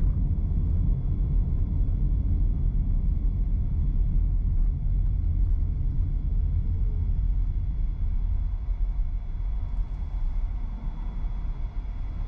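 Car driving along at road speed: a steady low rumble of road and engine noise with a faint steady high whine, getting a little quieter near the end.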